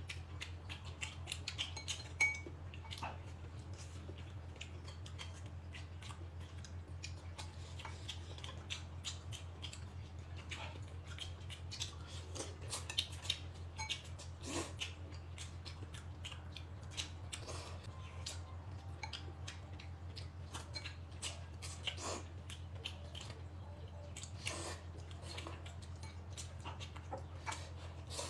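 Faint, irregular clicks and clinks of eating utensils against dishes, over a steady low hum.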